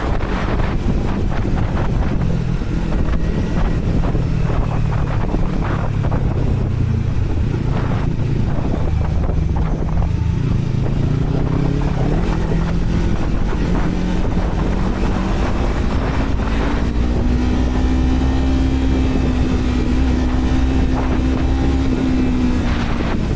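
Yamaha R3 parallel-twin engine running through a WR slip-on exhaust with the dB killer removed, under heavy wind noise on the microphone. The engine note climbs about halfway through, holds at a steady pitch, then falls just before the end.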